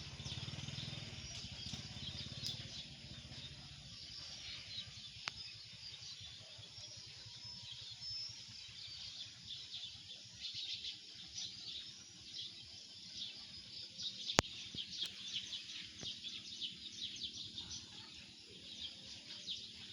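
Birds chirping and chattering, with many short overlapping calls that grow busier in the second half. A low vehicle rumble fades out in the first few seconds, and a single sharp click comes about two-thirds through.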